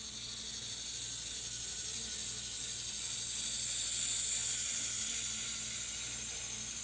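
Tomytec Moving Bus System N-scale model bus driving off, its tiny battery motor and gear train whirring in a high buzz. The whirr grows as the bus comes close, peaks about four seconds in, then eases off a little.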